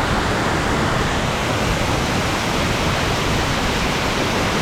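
Steady, loud rush of Soco Falls, a twin waterfall, pouring into the pool at its base, heard up close.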